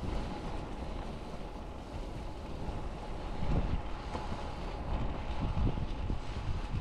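Wind rushing over a GoPro microphone on a moving bicycle, with gusty low rumble that swells louder in the second half.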